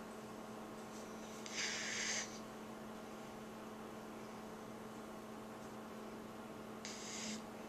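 A sleeping dog breathing loudly through its nose: two airy snoring breaths, each about half a second long and some five seconds apart, over a steady low hum.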